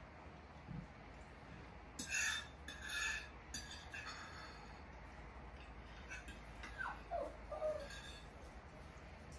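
Forks scraping and clinking against dinner plates during a meal, loudest about two and three seconds in, then a few lighter strokes. Near the end a short high whine falls in pitch.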